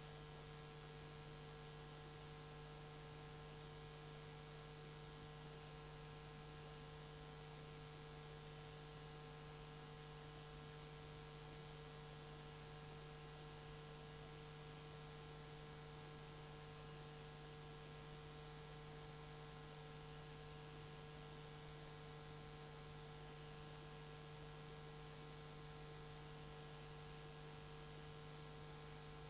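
Faint steady electrical hum with hiss, unchanging throughout.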